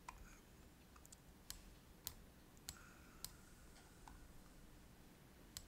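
A handful of faint computer mouse clicks, spaced about half a second to a second apart, over near silence.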